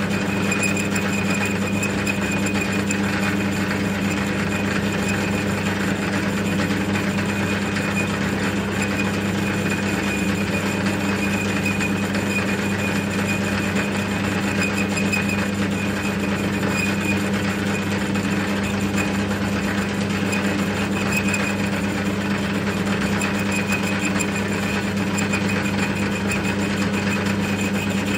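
Metal lathe running, with a boring bar cutting inside the bore of a steel roller to take off high spots left when welding shrank the bore. It makes a steady machine hum with a thin high tone over it.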